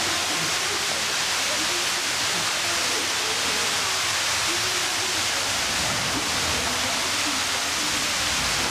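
Steady rushing hiss at an even level, like running water, with faint murmuring voices of onlookers underneath.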